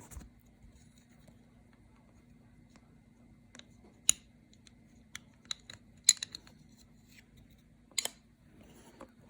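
Scattered small clicks and taps of the Sonoff Mini and its soldered programmer leads being handled and positioned, the sharpest about four and six seconds in, over a faint steady hum.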